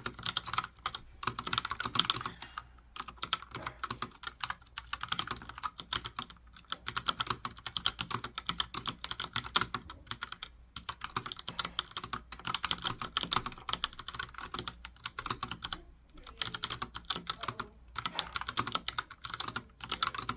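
Logitech POP Keys mechanical keyboard being typed on in a fast, steady stream of key clacks, with brief pauses every few seconds.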